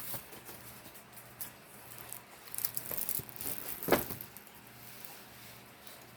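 Faint rustling and small clicks of a rolled diamond-painting canvas and its packaging being handled and unrolled, with one brief louder rasp about four seconds in.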